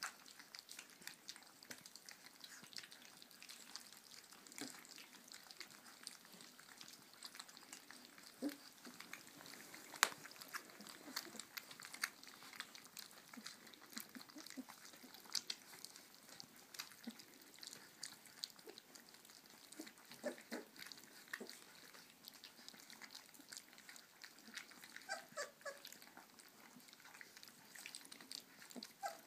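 Three-week-old puppies lapping and smacking wet food from a stainless-steel saucer feeder: a quiet, continual patter of small wet clicks. A few short squeaks come about twenty and twenty-five seconds in.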